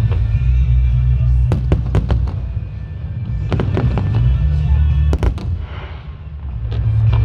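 Aerial fireworks going off: a continuous deep rumble of booming shells with sharp cracking bangs every second or so. The rumble dips briefly near the end and then swells again.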